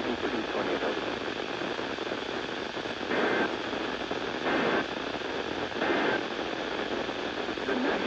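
Weather alert radio tuned to a NOAA Weather Radio channel, playing a hissy, static-laden signal with a faint voice under it. A little after three seconds in come three short digital bursts about 1.3 seconds apart, broken up by the static: the SAME data header that marks the start of a weather alert.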